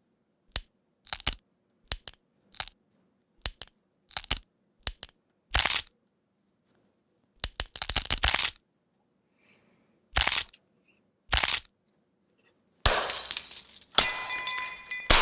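Knuckle cracking turned into sound effects: short sharp pops, often in pairs, then longer and louder cracks. Near the end it becomes a ringing crash of glass breaking and shattering.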